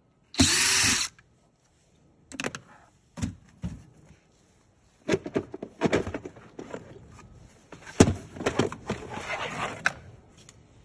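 Cordless drill running for under a second to back out a screw, its motor tone dropping away as it stops. Then knocks, clatter and scraping of the black plastic bottom cover of a massage chair base as it is handled and lifted off.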